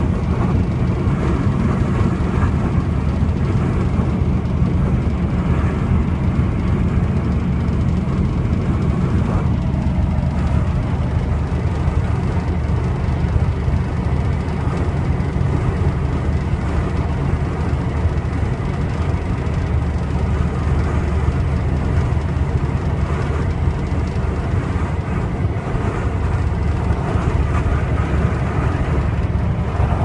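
Steady engine and road rumble heard from inside a vehicle's cab at highway speed, an even low drone with no breaks.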